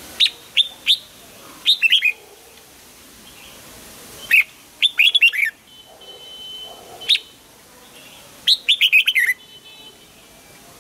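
Red-whiskered bulbul singing: short bursts of quick, falling whistled notes, five or so phrases separated by pauses of a second or two.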